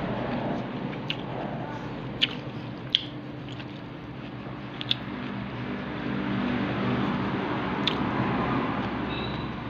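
A person chewing food close to the microphone, with a few sharp, wet mouth smacks at irregular moments over a steady low hum.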